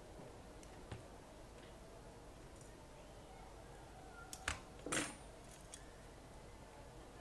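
Light metallic clicks, then a short clatter of metal on metal about five seconds in, as a laptop's CPU cooler with its copper heat pipe is handled and set into place in the chassis.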